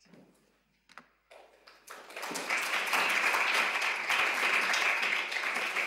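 Audience applauding, starting about two seconds in and holding steady through the rest.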